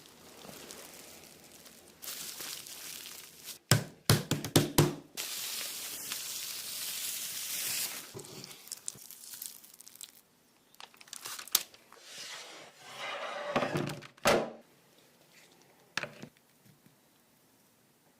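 Close-miked ASMR food sounds: scattered knocks and crinkling, with a longer hissing stretch about five to eight seconds in, fading to near silence towards the end.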